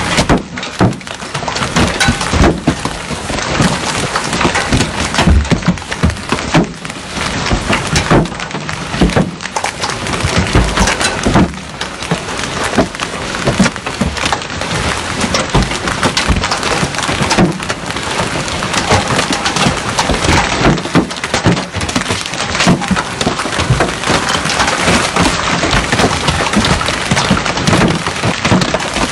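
Hailstones and heavy rain pelting a car, a loud, dense, unbroken clatter of small impacts.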